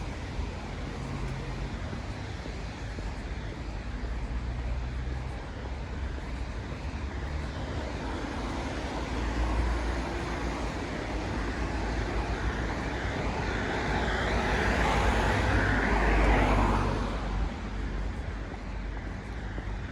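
Street traffic on wet asphalt, with a low steady rumble. A vehicle passes close, its tyre hiss building up to a peak about three quarters through and then falling away quickly.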